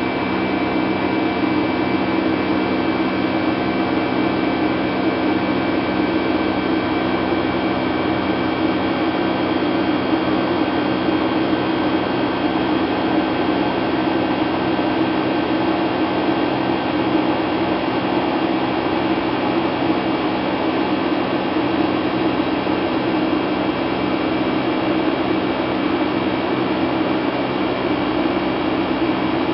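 Boeing 757-200 cabin noise in flight, heard from a window seat beside the wing-mounted turbofan engine: a steady engine drone with several held tones over a rushing hiss of air.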